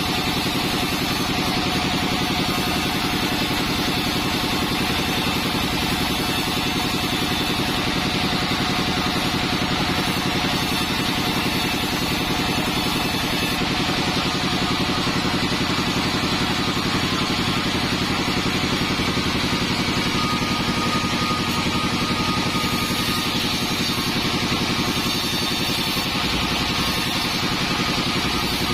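Modified band-saw sawmill running at a steady pitch and level: a continuous engine-like drone that does not change.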